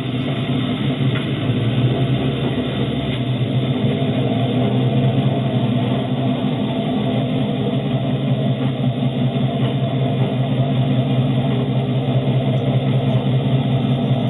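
Engine of a modified Suzuki Samurai rail cart running steadily as it drives along railroad track, a constant low drone.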